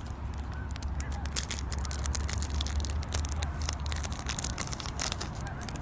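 A York peppermint patty's wrapper crinkling and crackling in quick, irregular clicks as it is unwrapped by hand, over a low steady rumble.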